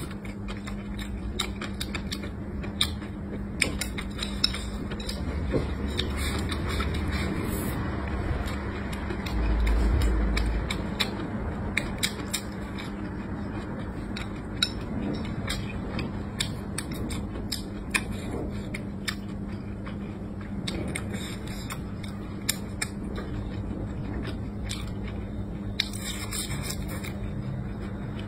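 Close-miked eating: a person chewing a mouthful of rice, with scattered sharp clicks of chopsticks against a bowl over a steady low hum. A brief low rumble rises about ten seconds in.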